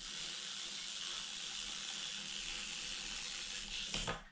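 Steady high-pitched hiss over a faint low hum, with a few soft knocks near the end.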